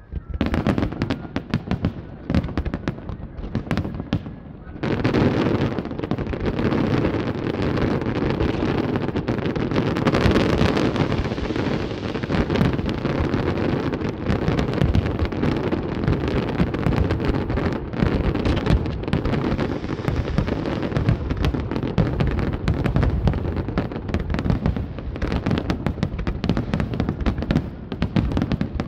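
Fireworks display: separate shell bursts banging for the first few seconds, then from about five seconds in a dense, continuous barrage of bangs.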